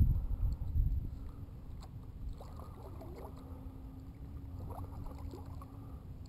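Kayak being paddled: paddle strokes and water swishing against the Feel Free Lure 11.5's hull, loudest in the first second, with a faint steady hum under it.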